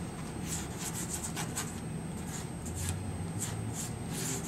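Pastel stick rubbing and scratching across paper in short, irregular strokes, about two to three a second.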